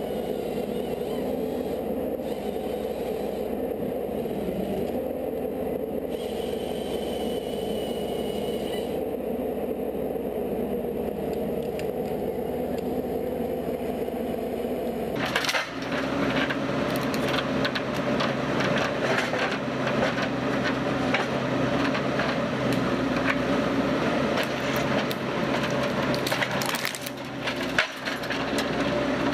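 A machine running with a steady hum; about halfway through it gives way abruptly to a wood-processing machine at work, with a dense run of cracking and splintering wood over its running noise.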